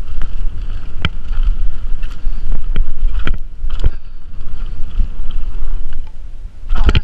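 Mountain bike descending a dirt forest trail at speed: wind buffeting the action-camera microphone as a steady rumble, with sharp knocks and rattles from the bike over bumps every second or so.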